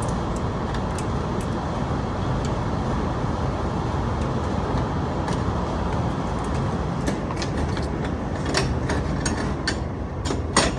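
Steady traffic rumble, with a run of short metallic clicks and taps in the last few seconds from hand tools working on a door's lock hardware.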